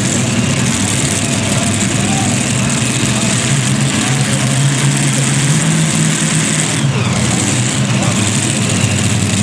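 Modified pulling tractor's engines idling steadily at the start line, a low even drone, with a faint falling whistle about seven seconds in.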